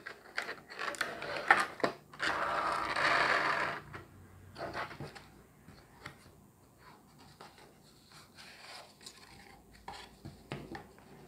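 Cardboard packaging being handled: scrapes and taps, then a long, loud scraping rustle as an inner box slides against its cardboard sleeve. After that come quieter rustles of flaps, a plastic bag and paper slips.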